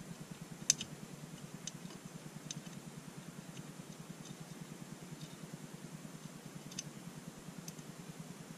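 A few light, sharp metal clicks, the loudest about a second in, as the thread-locked headless screw holding an AR-15 trigger guard is unscrewed from the lower receiver. A low steady hum runs underneath.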